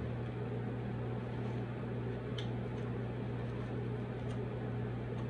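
Steady low mechanical hum in the room, with a few faint clicks as food is picked from a foam takeout container.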